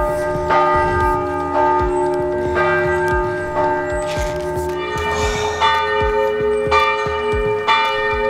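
Church bells ringing: repeated strikes, roughly one or two a second, each leaving a long ringing tone, with the set of pitches changing about five seconds in.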